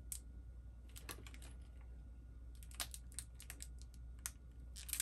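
Small plastic bag of caps being handled and turned in the fingers: faint, irregular clicks and crinkles, bunched about three seconds in.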